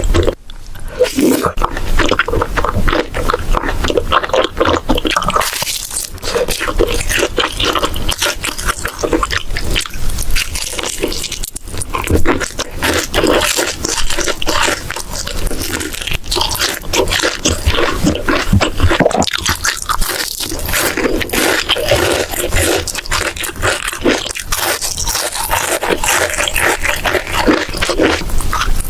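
Close-miked eating: crunchy bites and steady chewing, a dense run of small crackles, crunches and wet mouth clicks.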